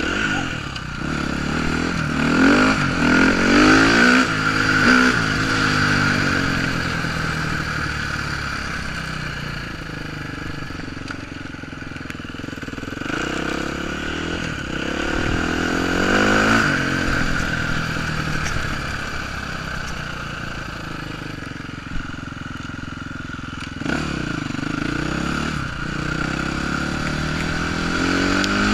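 KTM dirt bike engine pulling hard as it accelerates, its pitch rising three times (near the start, around the middle and near the end), settling back to a lower, steadier note in between.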